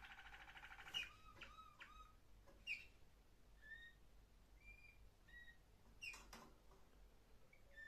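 Waterslager Malinois canary singing faintly: a fast rolling trill that stops about a second in, then short separate whistled notes broken by a few sharp upward chirps.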